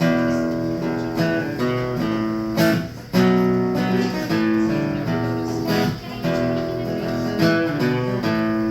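Acoustic guitar strumming chords, changing chord every second or so, as the instrumental lead-in to a song.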